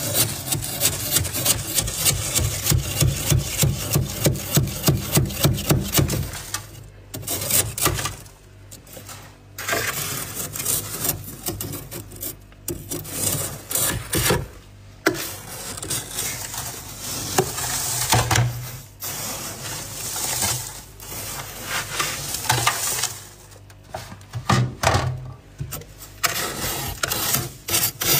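Thick freezer frost being scraped off a freezer's inner walls with a small hand tool. There is a fast run of regular scraping strokes for about the first six seconds, then slower, irregular scrapes with short pauses between them.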